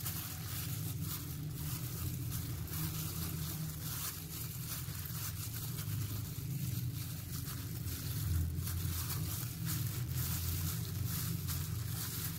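Plastic-bag-covered hand pressing and turning a chicken piece in a steel bowl of dry cornflour and flour coating: irregular soft crunching of the flour and rustling of the plastic, over a steady low rumble.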